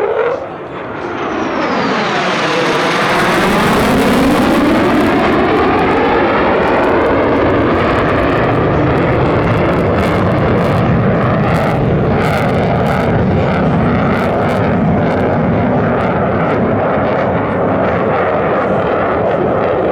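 Lockheed Martin F-35A Lightning II's single F135 turbofan engine as the jet makes a pass: a swelling whoosh that sweeps down then up in pitch as it goes by in the first few seconds, then a loud, steady jet rumble.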